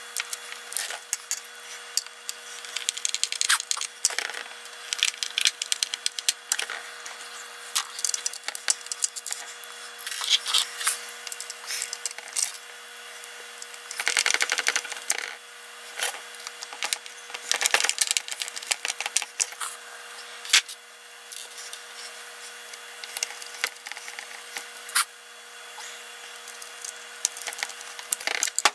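Screwdriver prying and scraping at the seams of a plastic speaker housing, with quick clicks and snaps of plastic against plastic and metal, played back sped up. A steady faint hum runs underneath.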